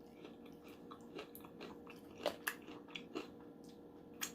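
Close-miked chewing of fried shrimp: faint, irregular crunches and wet mouth sounds, a few of them a little louder about two and three seconds in.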